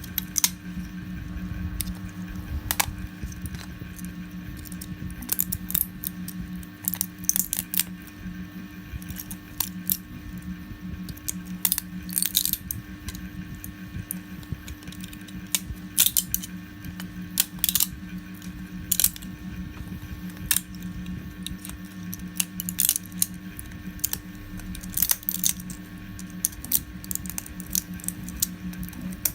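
Irregular sharp clicks and snaps of plastic 3D-print support material being cut and broken off with pliers and cutters, over a steady low hum.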